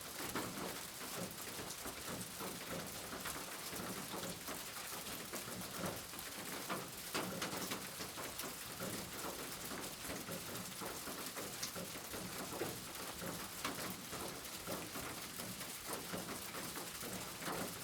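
Steady rain, with many separate drops heard striking a surface over a constant hiss.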